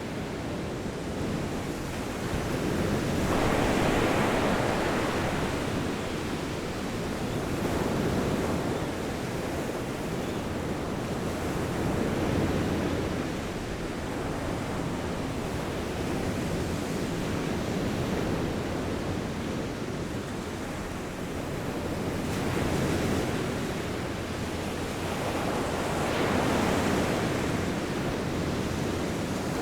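Ocean surf: a steady rush of waves that swells and ebbs every four seconds or so.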